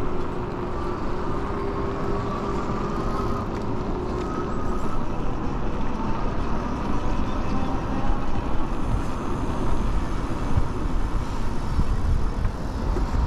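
Steady rushing wind and tyre noise of an electric bike riding along a paved street, heard through a handlebar-mounted camera's microphone, with a faint steady whine in the first few seconds.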